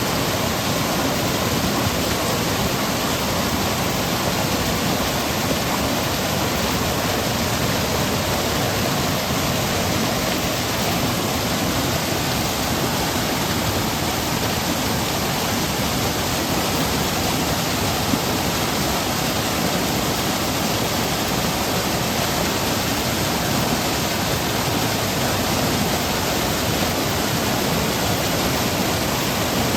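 Seasonal stream flowing and cascading over rocks and pebbles, a steady rushing of water with no breaks.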